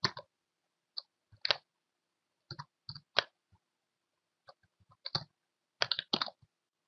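Computer keyboard typing: irregular single keystrokes and short runs of clicks with brief pauses between them.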